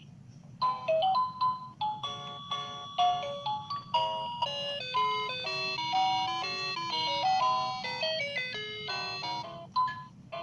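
Children's battery-powered toy tambourine playing a tinny electronic tune of short beeping notes, starting about half a second in.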